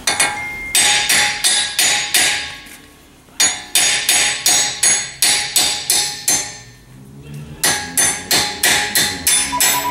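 Hammer blows on a steel wheel stud in a truck's front wheel hub, ringing metal strikes about two to three a second, in three runs with short pauses between them.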